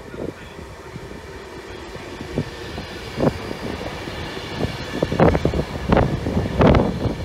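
Avanti West Coast Class 390 Pendolino electric train passing close by, a steady rush of wheels on rail that builds up. Sharp clattering thuds join it from about three seconds in, coming more often and louder towards the end as the coaches go past.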